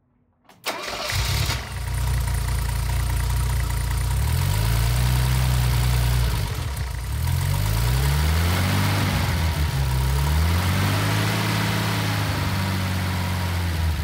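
Mercedes M110 twin-cam straight-six starting about half a second in, then running and being blipped by hand at the throttle linkage, the revs rising and falling about three times. It runs evenly with no misfire, cured by a new spark plug in the faulty cylinder.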